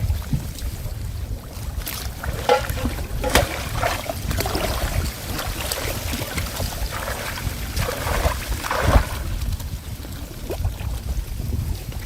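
Outdoor water scene with wind rumbling on the microphone, broken by irregular splashes and knocks, the loudest near the middle.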